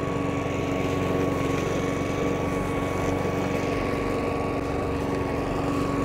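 Engine of a Hyundai 56 cm petrol lawn mower running steadily at an even speed.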